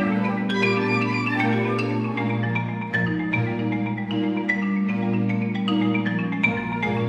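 Solo marimba playing a quick stream of mallet-struck notes with symphony orchestra accompaniment, sustained low notes held underneath.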